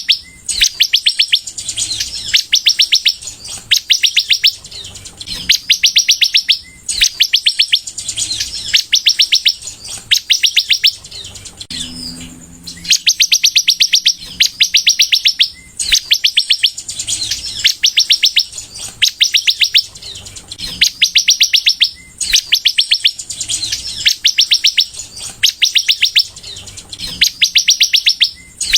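Sunbird (kolibri) in full song: rapid, high trills in bursts of about a second, repeated again and again with short gaps.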